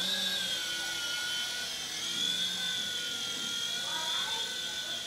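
Small electric RC toy helicopter's motor and rotors whining in flight, a steady high whine whose pitch wavers slightly.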